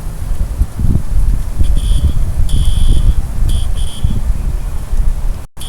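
Wind rumbling on the microphone, with a fire alarm speaker faintly sounding a high electronic beeping tone in uneven pulses from about a second and a half in; the alarm is very quiet at this distance. The sound cuts out for an instant near the end.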